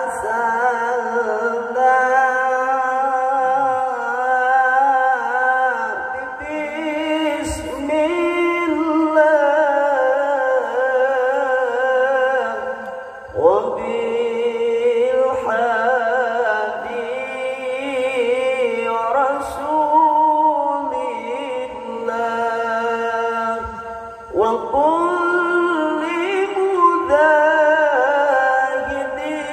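A male qori chanting Islamic devotional recitation in long, slow, ornamented melismatic phrases with a wavering vibrato. A new phrase starts with an upward swoop about 13 seconds in and again near 24 seconds.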